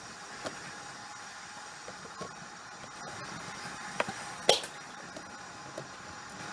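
7mm-scale model goods wagons rolling over the pointwork: a steady rumble with scattered sharp clicks as the wheels cross rail joints and points. The loudest click comes about four and a half seconds in.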